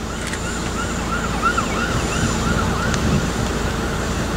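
Emergency-vehicle siren in a fast yelp, whooping up and down about three times a second over a steady low rumble of background noise.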